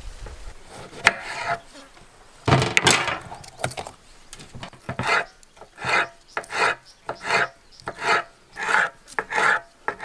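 Kitchen knife slicing a yellow bell pepper into strips on a wooden cutting board. The first half holds a few scattered scrapes; from about halfway on come steady strokes, about two a second.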